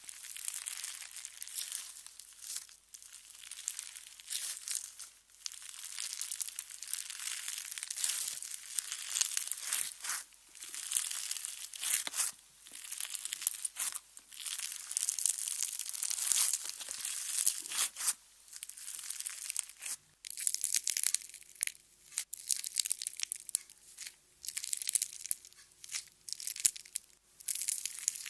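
Slime being squeezed, stretched and pressed by hand, giving irregular bursts of crisp, high-pitched crackling and clicking with short pauses between handfuls.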